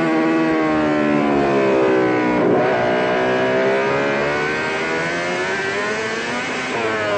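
Honda RC211V racing motorcycle's V5 engine at high revs, heard on board with wind rush. The pitch falls off as it slows, jumps up sharply about two and a half seconds in, sags again and climbs near the end.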